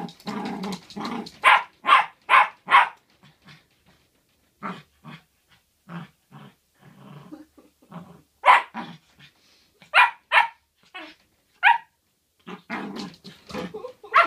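Irish Terrier puppy barking at its own reflection in a mirror, in quick runs of short sharp barks with some growling, easing off to a lull in the middle before barking again.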